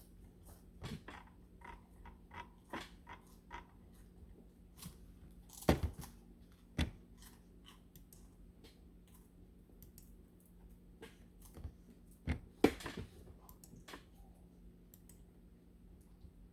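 Irregular clicks and knocks of small objects being handled, with louder knocks about six and seven seconds in and again around twelve to thirteen seconds, over a steady low hum.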